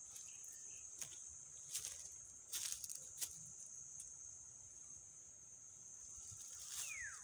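Steady high-pitched insect drone, the buzz of cicadas or crickets, with a few faint clicks scattered through it. Near the end comes a short falling whistle.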